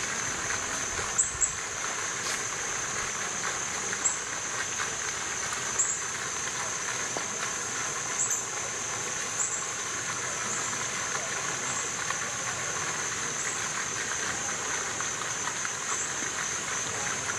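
Natural outdoor ambience: a stream running steadily, with a constant high-pitched hiss and short, sharp high chirps every second or two.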